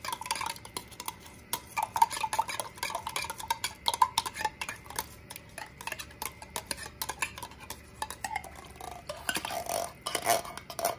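A metal spoon scraping and clinking inside a tin soup can as the last of the soup, loosened with a little chicken broth, is worked out into the mixing bowl. It makes many quick clicks and scrapes, louder near the end.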